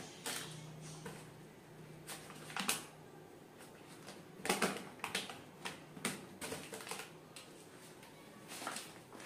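Tomatoes and onions being picked out of a wire vegetable rack lined with newspaper: irregular rustles of paper and light knocks of produce against the wire, the loudest about four and a half seconds in.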